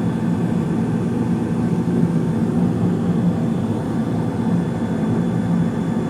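Steady low hum of a Carrier gas furnace running, with its blower and inducer on. Under it, a Maxitrol 325-7AL 2-psi gas pressure regulator on the furnace's gas line hisses faintly as gas flows to the lit burners.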